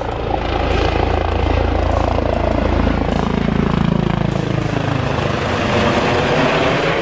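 Airbus H145M twin-turbine helicopter flying low directly overhead: loud, steady rotor and engine noise, dropping in pitch as it passes over about four seconds in.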